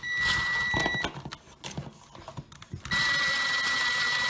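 Cordless drill/driver running while driving the mounting screws of a smoke alarm base: a run of about a second at the start, then a longer steady run from about three seconds in, each with an even high whine of fixed pitch. There are a few small clicks of handling in the gap between the two runs.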